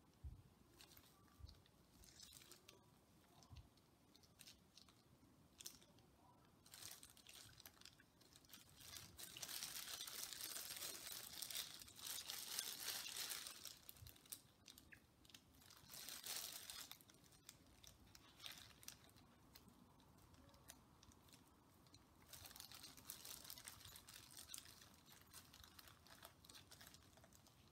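Thin plastic bag crinkling and rustling as it is wrapped around a dye-soaked mask, in several spells, the loudest and longest from about 9 to 13 seconds in and again from about 22 to 25 seconds in.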